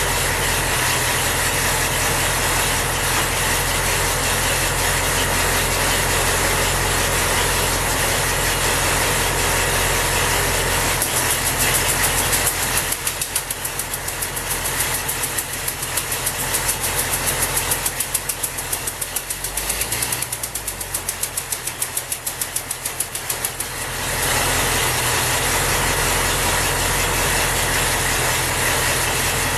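Cadillac 314 flathead V8 engine running: steady at first, then from about twelve seconds in it turns into an uneven, rhythmic pulsing for about twelve seconds before settling back to a steady run.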